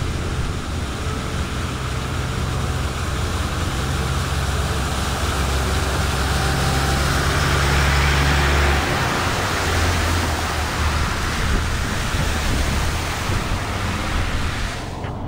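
Tanker truck's engine running as it drives through floodwater across the road. Its sound grows louder until the truck passes close by about eight seconds in, its tyres hissing and splashing through the water, with flowing water underneath throughout.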